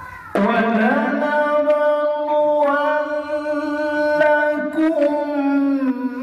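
A man's voice reciting the Quran in melodic tilawah style, starting about half a second in and holding one long drawn-out note with small turns in pitch, dipping slightly near the end.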